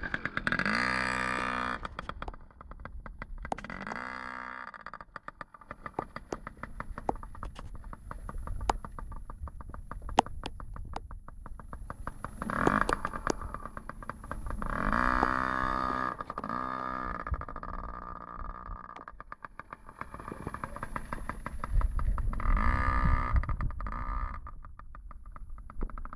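Yamaha PW50 mini dirt bike's small two-stroke engine revving up and dropping back about five times, fainter between the revs.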